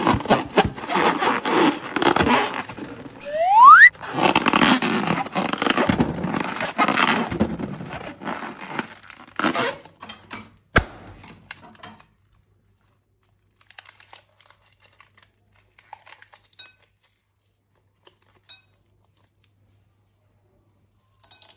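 Slime and balloon rubber being squeezed and worked by hand: a dense crunchy, crackly squishing full of small clicks, with a short squeak rising in pitch a little over three seconds in. It stops about twelve seconds in, leaving only faint scattered clicks.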